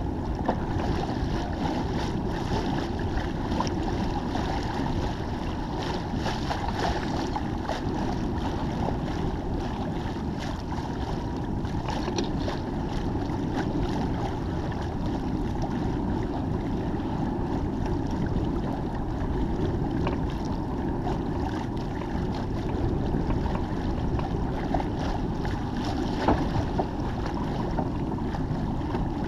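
Steady wind noise on the microphone mixed with water rushing along the hull of a sailboat under way, with a brief knock near the end.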